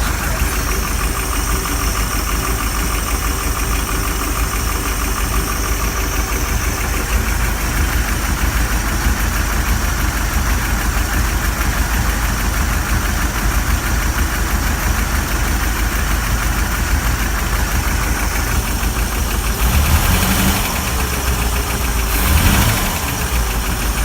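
Gasoline V8 inboard boat engine idling with a steady, rapid ticking, the loud valve tap on its right bank that the owner hopes is only valve lash rather than a bent or stuck valve. Two brief louder surges near the end.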